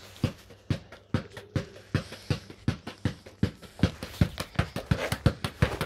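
Football bounced by hand on tarmac, dribbled continuously in a steady run of sharp thuds, about two and a half bounces a second.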